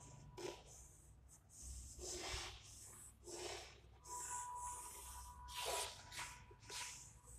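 Chalk scraping on a blackboard as lines are drawn, in about seven short scratchy strokes.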